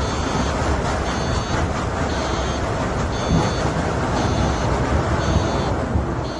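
A steady heavy rumble, with a high electronic beeper sounding about once a second, each beep lasting about half a second.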